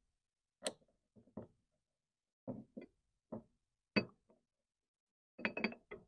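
Parts of a Mini-Rooter XP power cable feed clicking and knocking together as the housing is fitted back over the feed body by hand. About a dozen separate short clicks and taps, with a quick run of them near the end.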